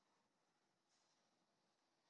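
Near silence, with no sound event.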